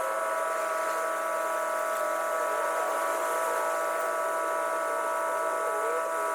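A small motor running at a steady speed, giving an even, unchanging buzzing whine.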